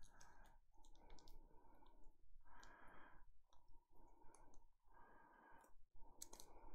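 Faint rustling and light clicks of trading cards and plastic card sleeves being handled, in a run of short rustles about once a second.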